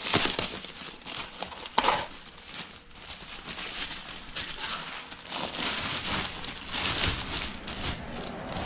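Clear plastic packaging wrap crinkling and rustling as it is pulled and handled, with a sharp knock about two seconds in.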